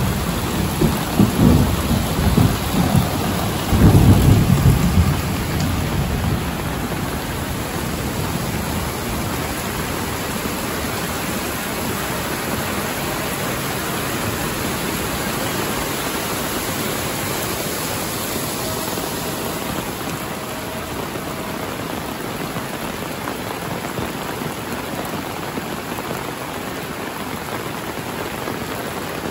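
Heavy rain falling steadily, with a rumble of thunder over the first five seconds or so, loudest about four seconds in, that dies away to leave the even hiss of the rain.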